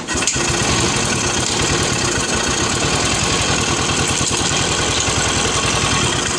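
Royal Enfield UCE Electra's single-cylinder engine catching about a quarter second in and then idling steadily with a rapid, even beat, freshly reassembled after a cylinder head refit.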